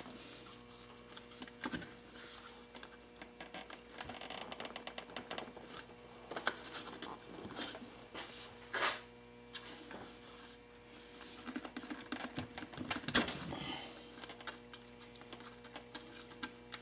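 Scattered clicks, taps and rustling as a motorcycle backrest and its luggage-rack mounting plate are handled, set against a rear fender and lifted off again, over a steady electrical hum. The loudest knocks come about nine and thirteen seconds in.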